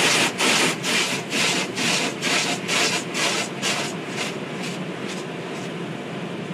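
Automatic car wash brushes rubbing over the car body in a rhythmic swish about twice a second. The swishing fades out about five seconds in, leaving a steady hiss.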